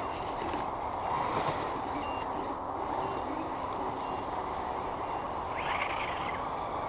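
Radio-controlled crawler trucks running, a steady whirring noise, with a few faint short high beeps.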